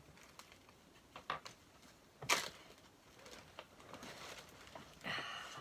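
Light handling noises of small plastic craft items: scattered clicks and crinkles, with one sharper click a little over two seconds in.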